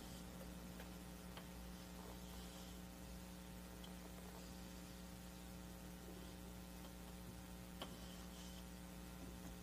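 Quiet pause filled by a steady electrical mains hum, with a single faint click about eight seconds in.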